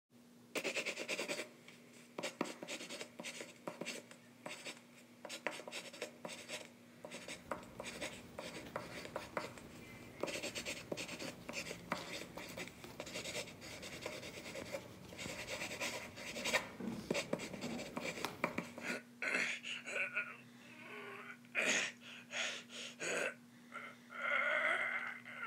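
Pencil scratching across lined notebook paper in quick, uneven strokes as someone writes. In the last several seconds the writing stops and a few short, frustrated vocal sounds follow.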